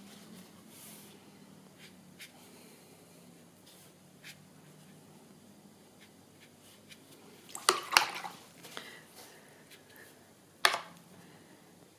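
Quiet handling sounds of watercolour painting: a cluster of sharp clicks and knocks about eight seconds in and one more sharp knock near the end, from a paintbrush and painting gear being handled.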